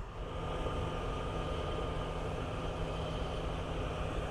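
Heavy farm machinery running steadily: an even engine drone with a faint high whine held at one pitch.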